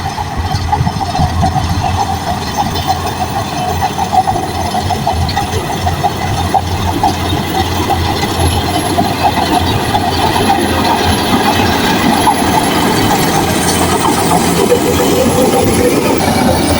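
Shantui crawler bulldozer working: its diesel engine running with a dense, continuous clatter of steel tracks.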